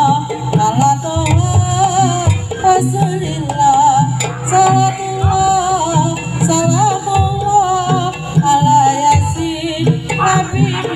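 Jaranan ensemble music: drum strokes keeping a steady beat under a high, wavering, ornamented melody line.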